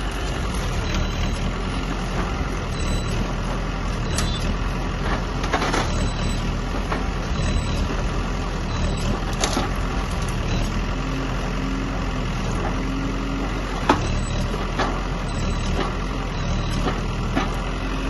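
Diesel engine of a JCB backhoe loader running steadily, with a few sharp knocks, the loudest about fourteen seconds in.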